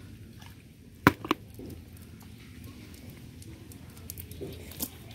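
Wet handling sounds of small fish being picked out of a cast net on muddy ground, with two sharp slaps close together about a second in and a few fainter ticks near the end.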